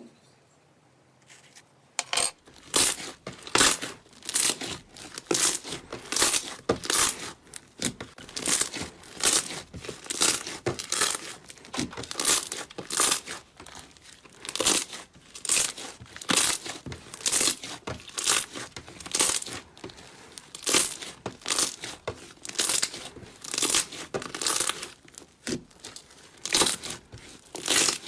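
Slime being squeezed and pulled by hand, making a run of crackling, tearing pops, about two a second, starting about two seconds in.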